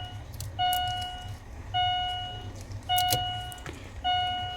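A car's electronic warning chime dinging repeatedly, a single tone roughly once a second, each ding fading before the next, over a steady low hum.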